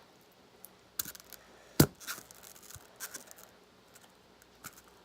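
Handling noise: scattered light clicks and rustles, with one sharp knock a little under two seconds in.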